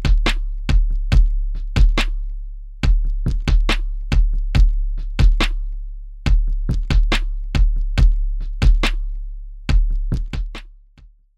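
Electronic drum-machine beat: sharp, crisp hits in a steady pattern over a continuous deep bass, fading out in the last second or so.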